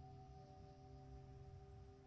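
Near silence, with faint background music of a few soft held tones.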